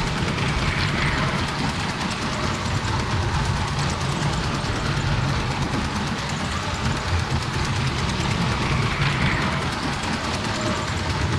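Brick-built toy train running on plastic track, heard up close from a camera riding aboard it: a steady, dense rattle and rumble of the wheels and electric train motor.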